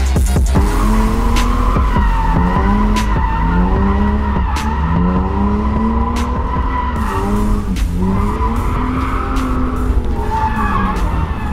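A drifting car's engine revving up and falling back again and again, about once every second or two, over a steady high tyre squeal as the rear tyres slide.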